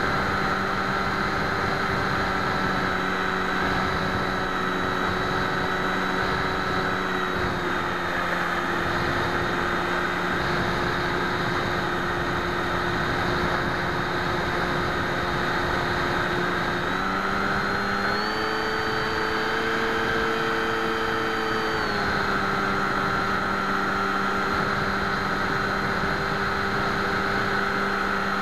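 FX61 flying wing's electric motor and propeller droning steadily in flight, picked up by the onboard camera along with rushing air. A little past halfway the pitch steps up for about four seconds as the motor speeds up, then settles back to cruise.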